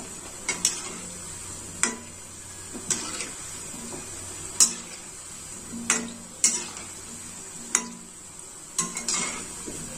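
Pakoras deep-frying in hot oil in a metal kadhai with a steady sizzle, while a perforated metal slotted spoon stirs them and clinks against the pan in sharp knocks about once a second.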